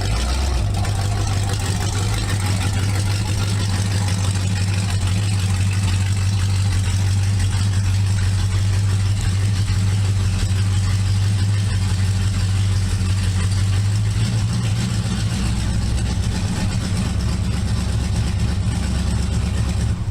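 A car engine idling steadily with a deep, even note, cut off suddenly at the end.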